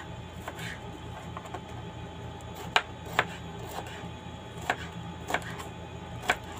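Kitchen knife chopping a green bell pepper on a plastic cutting board: sharp, irregular knocks of the blade on the board, about one a second.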